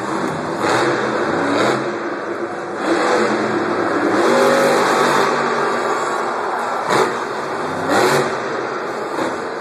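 Monster truck's supercharged V8 engine revving up and down again and again through a freestyle run, heard across a stadium. There are a few sharp bangs, about a second in and again near the end.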